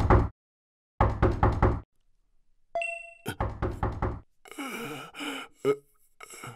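Knocking on a wooden door in quick rounds of several raps each, three rounds in all, with a short pitched musical note just before the last round. A softer, breathy sound follows once the knocking stops.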